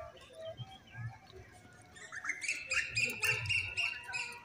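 A small animal's rapid run of shrill chirps, about six or seven a second, starting about two seconds in, over faint scattered bird chirps.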